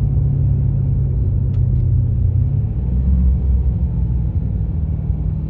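Chrysler 300C's 5.7-litre Hemi V8 running while being driven, heard from inside the cabin as a steady low rumble. About two and a half seconds in, its pitch drops to a lower note as the revs change. The car is being worked through downshifts to bring out a rattle or tick that the owner hears from the engine.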